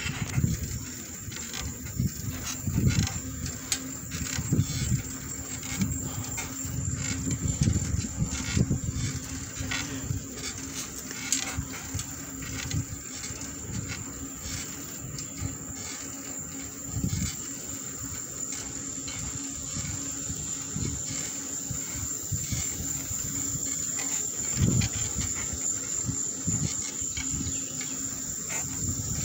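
Wind buffeting the microphone and tyre rumble from a bicycle rolling over asphalt, in uneven gusts, with scattered small clicks and rattles. A steady high insect trill, like crickets, runs underneath.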